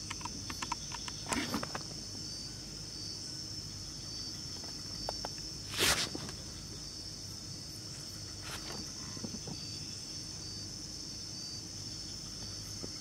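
Night chorus of crickets and other insects, a steady high-pitched trilling, broken about six seconds in by a brief sudden noise in the water, with a few fainter knocks around it.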